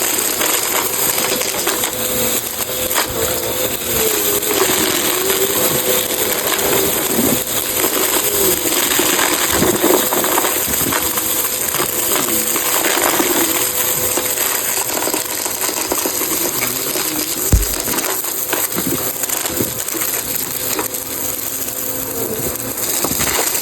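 Bissell CleanView Rewind upright vacuum running over a rug, its motor humming steadily while coins, beads and debris crunch and rattle up through the brush roll. A single sharp thump about three quarters of the way through.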